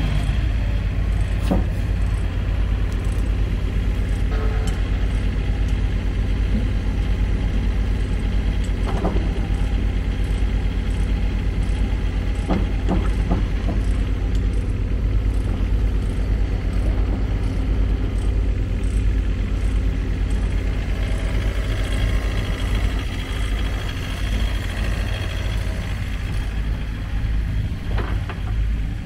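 Takeuchi TB250-2 five-tonne excavator's diesel engine running steadily, with a few sharp knocks from the machine over it.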